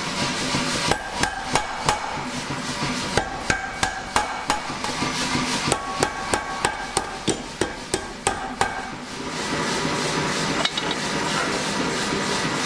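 Hammer blows on hot steel against an anvil while forging tongs, a quick run of about two to three strikes a second with a ring after each. The hammering stops near the end, leaving a steady rushing noise.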